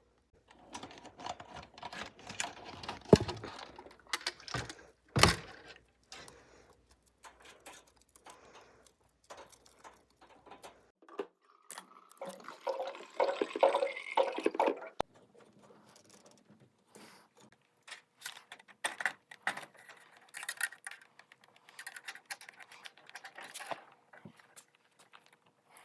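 Scattered clicks and knocks of a rabbit's water bottle and hutch being handled, with a few seconds of water pouring as the bottle is filled, about twelve seconds in.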